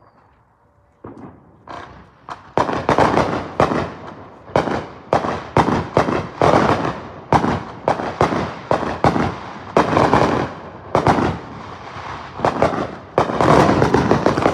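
Consumer fireworks going off in a rapid, irregular barrage of loud bangs with crackling between them. It starts about a second in and grows denser toward the end.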